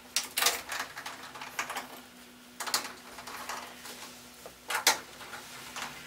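Hand nut driver undoing the 7 mm bolts on a tumble dryer's front frame: a string of short clicks and scrapes, the loudest pair near the end, over a faint steady hum.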